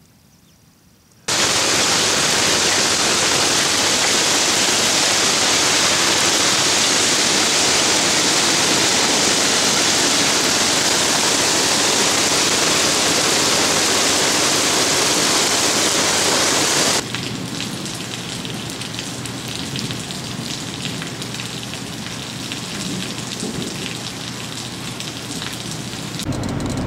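Heavy rain and hail falling, a dense steady hiss that starts suddenly about a second in. About sixteen seconds in it drops abruptly to a lighter, quieter downpour with scattered patter.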